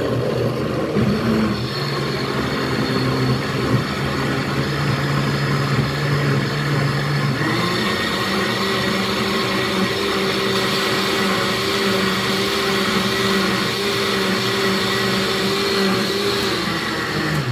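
Countertop blender running, churning peeled mango pulp into juice. The motor starts abruptly and hums steadily. About seven seconds in it climbs to a higher pitch and holds there, then winds down at the very end.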